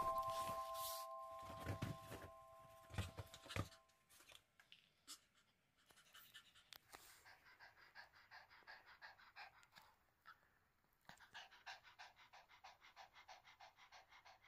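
A Papillon dog panting quickly and evenly, faint. In the first few seconds a chime rings out and fades over rustling and a few soft thumps.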